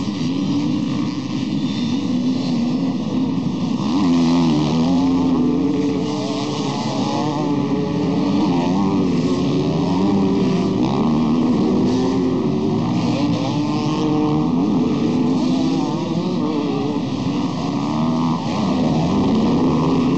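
A pack of off-road motorcycles racing together, many engines revving at once with overlapping pitches that keep rising and falling. The sound gets louder about four seconds in as the bikes come close.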